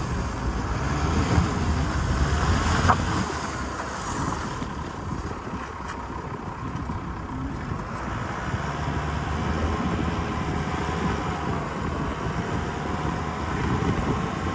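Cabin noise inside an Isuzu V-Cross pickup driving on a snow-covered road: the engine and tyres running with a steady low rumble.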